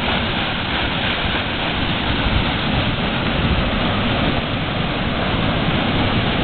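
Side paddle wheel of the paddle steamer Skibladner churning the water: a loud, steady rush of splashing and foaming.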